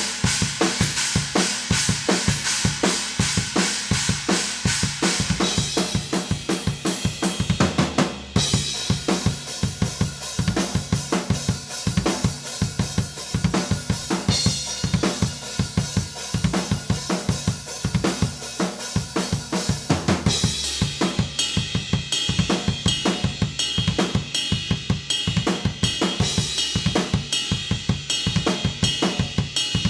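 Acoustic drum kit played in a steady groove, with kick, snare and cymbals, picked up raw and unprocessed by a single Shure SM57 used as a close room mic. The cymbal pattern changes a few times along the way.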